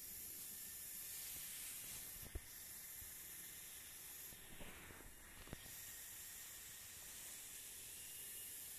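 Faint steady hiss of background noise, broken by two brief sharp knocks, about two and a half and five and a half seconds in.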